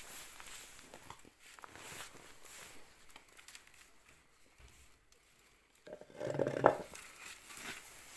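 Thin bamboo strips rustling and clicking as gloved hands bend and thread them into a woven round pot trivet. About six seconds in, a brief louder pitched sound cuts through.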